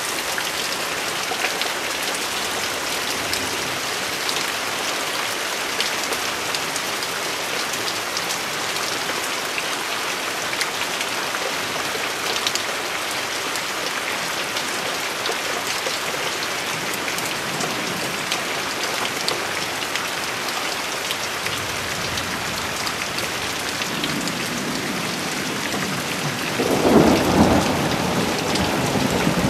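Steady rain falling throughout a thunderstorm. A low rumble of thunder builds faintly late on and swells into a loud roll near the end.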